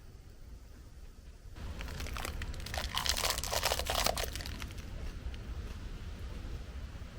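Crinkly material being handled, a dense run of crackles that starts about a second and a half in, peaks around the middle and fades out after about three seconds, over a steady low rumble.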